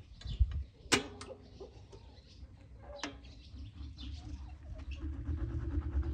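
Birds chirping faintly in the background, broken by a few sharp knocks or clinks about one and three seconds in; a steady low hum comes in near the end.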